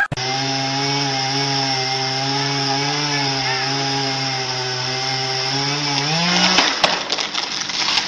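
Chainsaw running at a steady high speed, then revving up about six seconds in, followed by rougher rasping noise with sharp cracks near the end.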